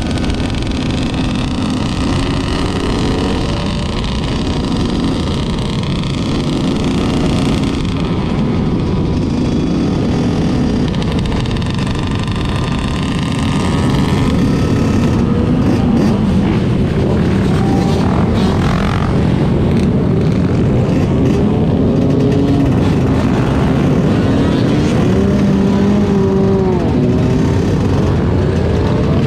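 A large group of motorbike engines running together, several revving up and down over one another. It grows louder about halfway through.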